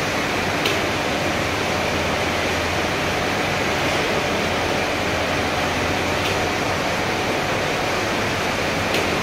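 Steady rushing noise and hum of textile dyeing machinery in a yarn dye house, with a few faint clicks: one about a second in, one around the middle, and one near the end.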